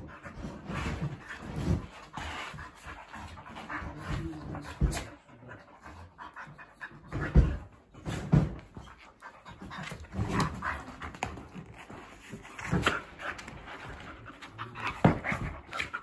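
Two dogs play-wrestling, panting and snuffling as they mouth each other, with a few sharp knocks of bodies on the floor, the loudest about seven seconds in.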